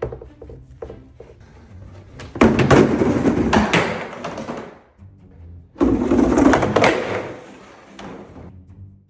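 A sled clattering and scraping down a flight of stairs with dogs on it, twice, each run lasting about two seconds, over background music.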